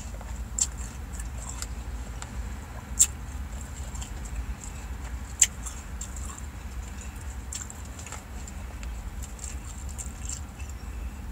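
Plastic fork clicking and scraping in a plastic salad container, with sharp clicks about half a second, three seconds and five and a half seconds in, over a steady low rumble.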